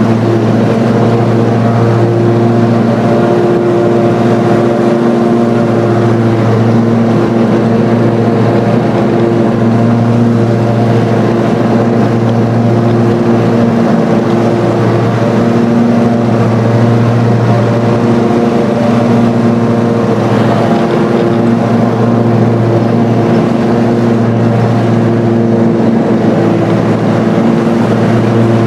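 Riding lawn mower engine running steadily under way on the lawn, heard from the driver's seat as a loud, even hum that holds one pitch with only slight wavering.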